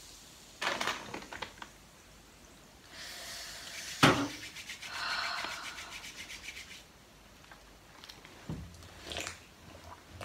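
Sips of a soft drink from a thin plastic cup and handling of the cup. There is a sharp tap about four seconds in, then a few seconds of soft crackling hiss, and more sips near the end.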